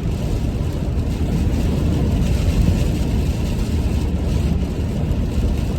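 A car driving: steady engine and road rumble.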